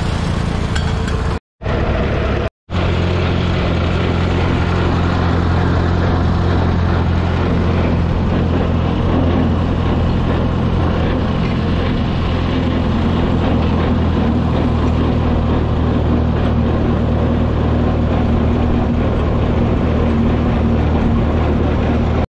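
Vintage farm tractor engine running steadily while the tractor drives down the road, heard close up from the tractor itself. The sound drops out briefly twice near the start.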